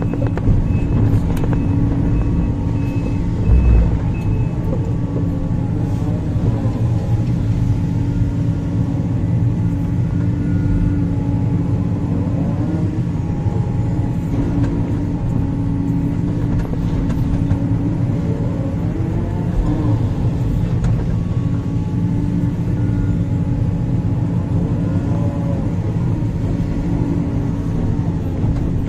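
Large hydraulic excavator, the Sumitomo 490, working: the diesel engine runs steadily while a hydraulic whine rises and falls about every six seconds as the pumps take up and release load through the digging cycle.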